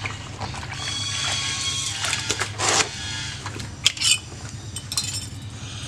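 Soapy water sloshing and dripping in a plastic washbasin as a soaked huipil is worked by hand and lifted out onto a stone washboard, with a few small knocks about four seconds in. A low steady hum runs underneath.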